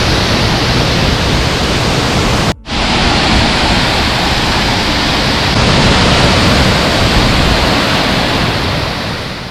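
Waterfall roaring: a loud, steady rush of falling water, with a short break about two and a half seconds in and a fade near the end.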